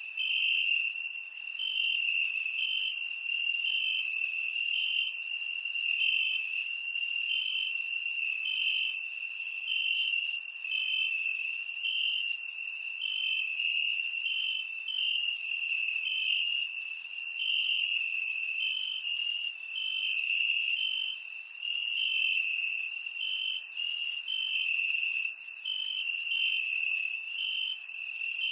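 Crickets chirping: a steady high-pitched trill, with short chirps from another cricket repeating over it about twice a second.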